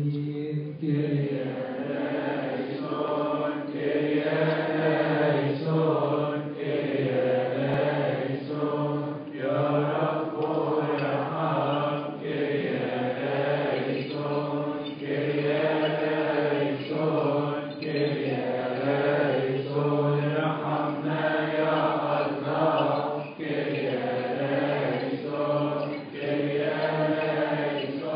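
Coptic Orthodox church hymn chanted in unison by a group of voices, in long held notes that rise and fall.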